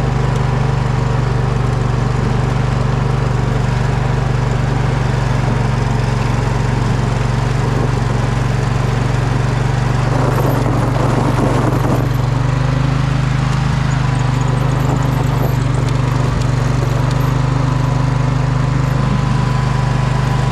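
Poulan riding mower's engine running steadily under load while it plows snow and ice. About ten seconds in there is a brief stretch of rougher noise, and the engine note shifts a little just after.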